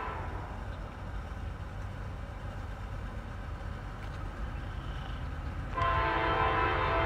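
Air horn of an approaching CSX freight locomotive: a multi-note chord that dies away just after the start, then sounds again, louder, about six seconds in, over a low rumble.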